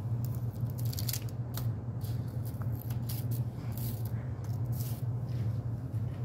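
Crisp dried meringue cookies being handled and lifted off parchment paper: light, scattered crackles and papery rustles, over a steady low hum.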